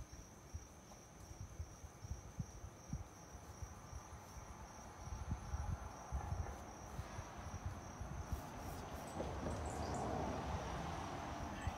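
Crickets trilling steadily at a high pitch, over a low, uneven rumble that grows louder in the last few seconds.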